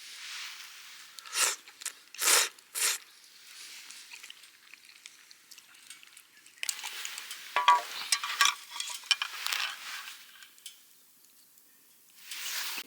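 Crinkling, rustling handling noise: three short crunchy bursts in the first three seconds, a longer stretch of rustling with a few light clinks from about seven to ten seconds in, and one more burst near the end.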